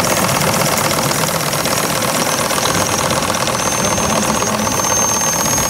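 Small model steam boat engine running steadily close by, a fast, even ticking beat, with a faint high thin tone joining in the second half.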